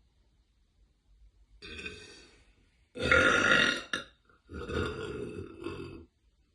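A woman burping loudly: a softer sound first, then the loudest burp about three seconds in, followed after a short break by a second, longer one.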